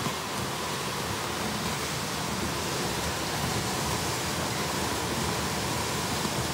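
Omega ribbon blender running, its ribbon agitator churning dry, free-flowing product in the trough: a steady rushing noise with a faint steady tone.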